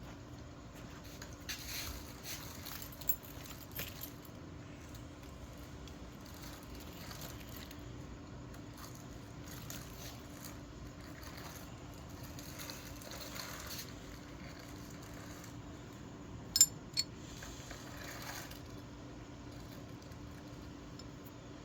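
Faint steady hum with scattered small handling noises, and two sharp clicks close together about sixteen and a half seconds in.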